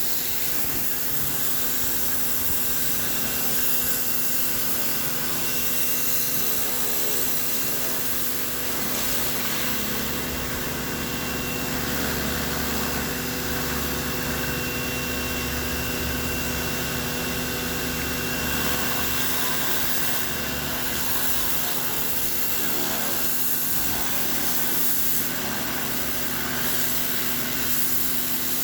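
Stihl pressure washer running steadily: an even motor hum with a hiss on top, with some extra low rumble about halfway through.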